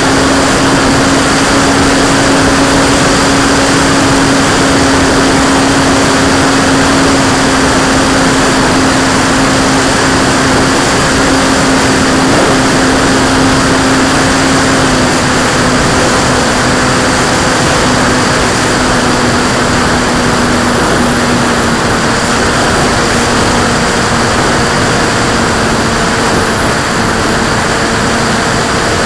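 Radio-controlled P-51 Mustang model's motor and propeller running steadily in flight, heard close up from an onboard camera with heavy wind rush. The propeller tone is steady and drops slightly about halfway through as the throttle eases.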